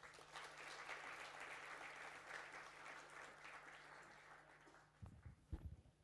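Audience applauding, rising at once and fading out after about four and a half seconds, followed by a few low thumps near the end.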